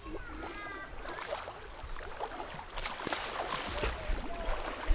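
River water sloshing and lapping around someone wading with the camera, with small irregular splashes and drips and a sharper knock near the end. A faint steady high insect buzz runs underneath.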